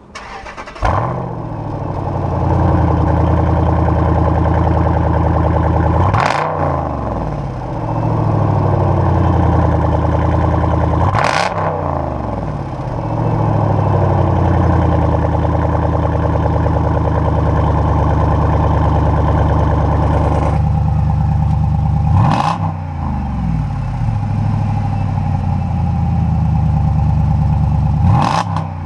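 The 6.4-litre HEMI V8 of a 2012 Jeep Grand Cherokee SRT8, through a GT Haus Meisterschaft cat-back exhaust, starts and idles with the electric exhaust cutouts open and is revved twice to about 3000 rpm. About twenty seconds in, the cutout valves close and the idle note changes, and it is revved twice more to the same speed.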